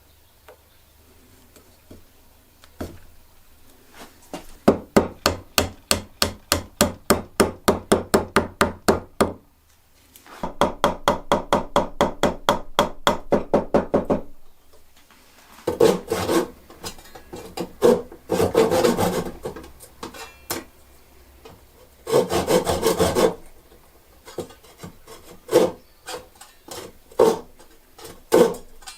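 Hand tool working wood in fast back-and-forth strokes, about five a second, in two runs of about four seconds each with a short pause between. After that come rougher rubbing strokes and a few scattered knocks on wood.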